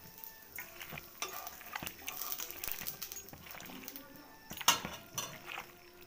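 Raw mutton being mixed and rubbed by hand with masala paste and mustard oil in a metal pot: wet squelching and rustling with scattered metallic clinks, and one sharper clink about two-thirds of the way in.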